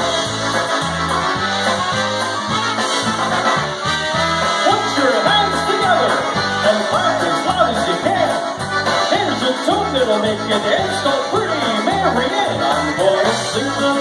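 Polish-American polka band playing live through PA speakers: a steady, even bass beat under trumpets and other melody instruments.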